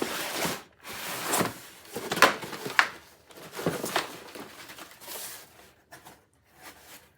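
Irregular rustling and scraping handling noise with a few sharp clicks, getting quieter and more broken up toward the end.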